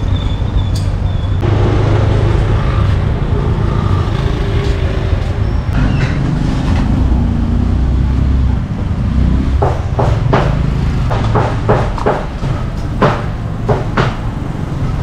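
Street traffic: motor vehicles running and passing close by with a steady low rumble. A series of sharp knocks comes over the last five seconds.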